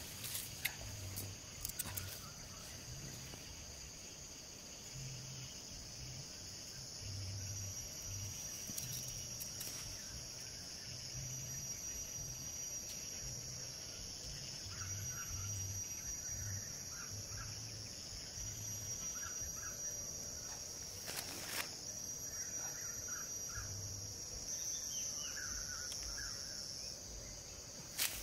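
Insects buzzing steadily in a high continuous drone that shifts slightly in pitch every few seconds. Faint bird chirps come in during the second half, and a few short clicks sound, the clearest about two-thirds of the way through.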